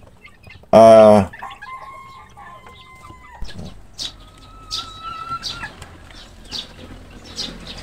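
Chickens calling: about a second in there is a short loud call, then roosters crow twice in the background, long drawn-out crows, the first dropping in pitch at its end. Short high peeps from the chicks recur throughout.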